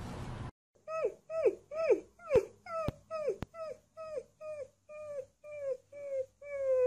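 Alaskan malamute puppy howling: about a dozen short yelps, two or three a second, each dropping in pitch, then one long held howl near the end.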